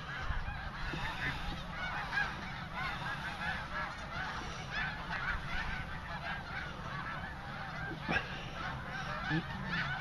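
A large flock of snow geese calling all at once: a dense, unbroken chorus of many overlapping short honks. A low steady rumble runs underneath.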